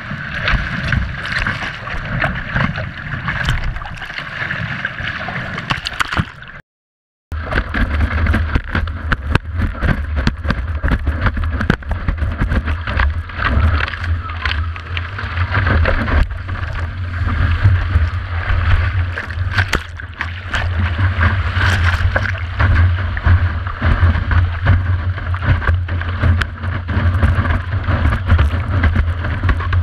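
100-litre windsurf board planing at speed over choppy water: a continuous rush of water and spray along the hull with frequent slaps and knocks as it hits the chop, heard from a camera mounted on the board's deck. The sound cuts out for under a second about seven seconds in, and after that a heavier low rumble runs under it.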